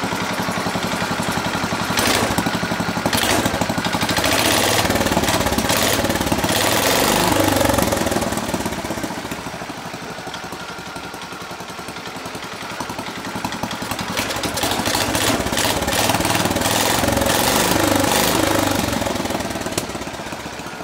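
Cub Cadet 73 tractor's Kohler single-cylinder engine running with a rapid, even firing beat, revved up twice and let back down. The engine is a heavy smoker.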